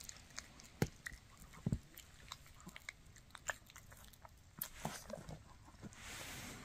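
Shih Tzu gnawing on a bully stick: irregular sharp clicks and crunches of teeth working the chew.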